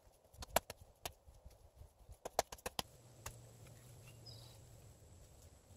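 Wet mud being slapped and packed by hand onto the base of a log wall: a series of sharp, wet slaps in the first three seconds. After that, a low steady hum for about a second and a half.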